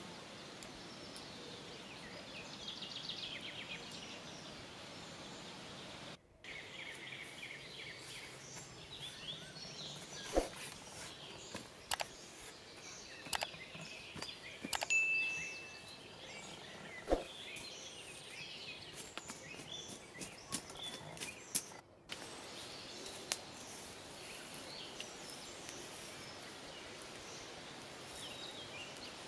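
Woodland ambience with small birds chirping and one short whistled note, broken by a few sharp knocks and footsteps as a person gets up and moves about a campsite. The sound cuts out briefly twice.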